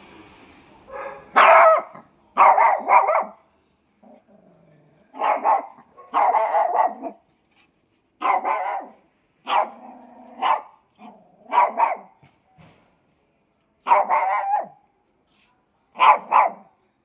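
Puppies barking in short bursts, some single barks and some quick runs of two or three, every second or two with a brief pause near the end.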